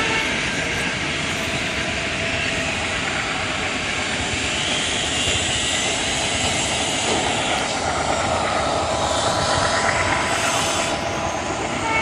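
Goods train of covered wagons running away into the distance behind twin WDM-3D ALCO diesel locomotives: a steady rumble and drone that stays even in loudness.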